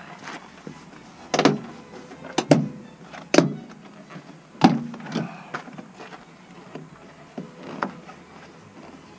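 Irregular sharp knocks and clicks, about five loud ones among smaller rattles, from a tool and hands working inside a van's door shell while fishing for a dropped door-handle part.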